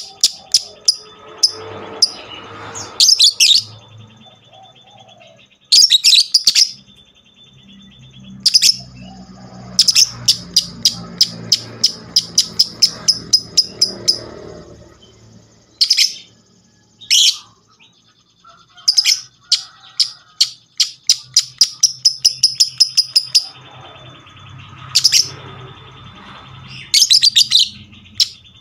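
Lovebird ngekek: long runs of rapid, sharp, high-pitched chattering chirps, about four or five a second, broken by short pauses.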